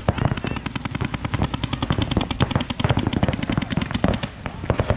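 Paintball markers firing in rapid strings, sharp shots coming about ten or more a second. The fire thins out about four seconds in.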